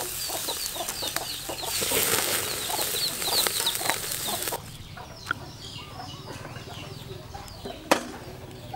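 Meat sizzling on a charcoal grill, a loud hiss that stops suddenly about four and a half seconds in. Chickens cluck and chirp throughout. A single sharp knock comes near the end.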